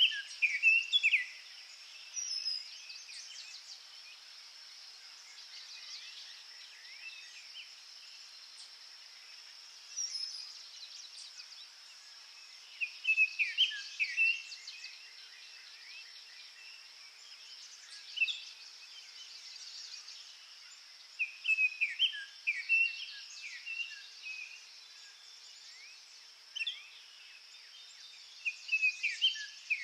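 Songbirds singing in short phrases every few seconds, over a steady high insect drone.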